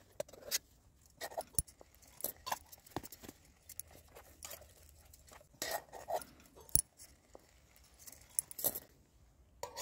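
Small metal camping gear being handled: scattered light clinks and clicks as a folding canister gas stove with wire legs is unpacked from a cloth bag, with a couple of sharper clicks.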